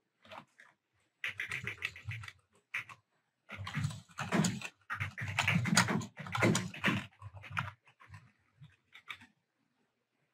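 Typing on a computer keyboard: runs of quick key clicks with short pauses between them, starting about a second in and densest in the middle.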